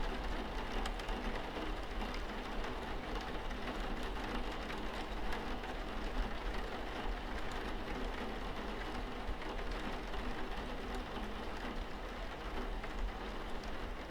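Steady rain falling, an even hiss with scattered drop clicks.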